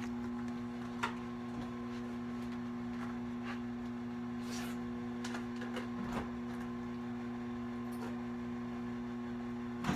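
Steady low electrical hum, with scattered light clicks and knocks from kitchen containers being handled.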